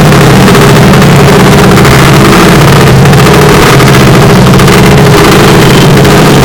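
Harsh noise music: a dense, distorted wall of noise at full level that does not let up, with steady humming tones low down beneath it.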